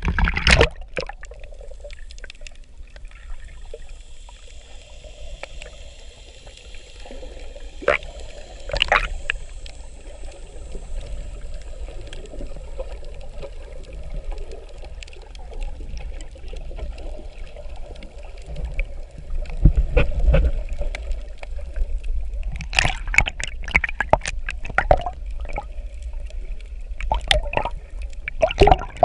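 Muffled underwater water sound picked up by a submerged camera: a steady low rumble with scattered sharp clicks and crackles, which come thicker from about two-thirds of the way in.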